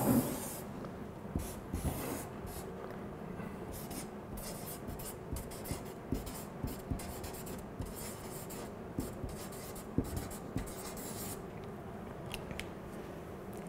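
Marker pen writing and drawing on flip-chart paper: a long series of short scratchy strokes in irregular runs.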